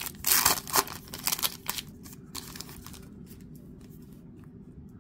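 Foil trading-card pack wrapper crinkling and tearing as the pack is ripped open by hand, a dense crackle for about two seconds. A few fainter rustles follow as the cards are slid out, then it goes quiet.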